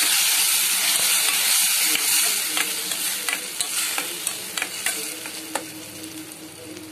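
Freshly added ground tomato sizzling loudly in hot oil with fried onions in a steel pan, the sizzle dying down steadily over the next few seconds. From about halfway, a metal spoon stirring the mixture clicks and scrapes against the pan.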